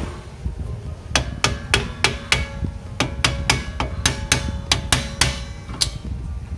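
A metal tool tapping repeatedly on a car's rear drum-brake assembly: a quick, uneven series of about fifteen sharp, ringing metal knocks, starting about a second in.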